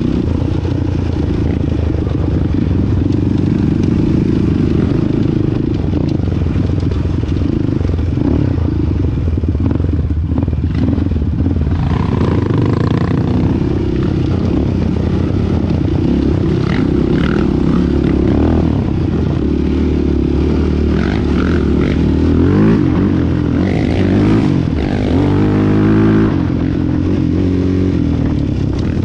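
Single-cylinder sport quad (ATV) engine running hard, its pitch rising and falling with the throttle and shifts, most plainly in the last several seconds. Rattling and scraping from the machine over rough ground run underneath.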